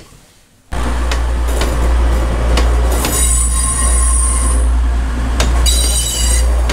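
A moving vehicle's steady low rumble, starting suddenly about a second in, with high-pitched squeals coming and going over it and a few sharp clicks.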